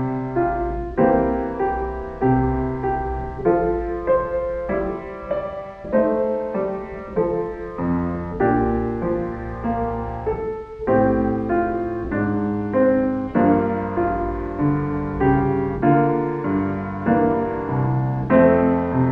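Background piano music: slow, gentle notes and chords, each struck and then fading.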